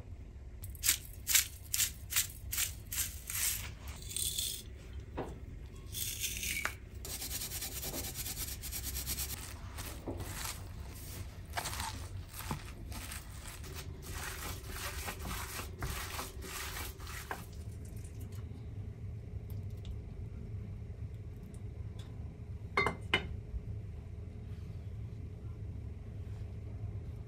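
A hand spice grinder twisted over a bowl of chopped vegetables, giving a run of sharp crunching clicks. This is followed by gloved hands kneading gyoza filling of minced meat and greens in an enamel bowl, a long wet squishing and rubbing that stops a little past halfway, then a couple of light knocks against a low steady hum.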